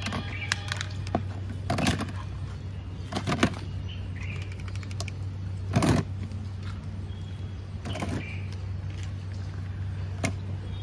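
Small plastic toy vehicles knocking and clattering against a cut-open plastic bottle as they are picked up and dropped in: several separate sharp knocks, spread out over a steady low hum.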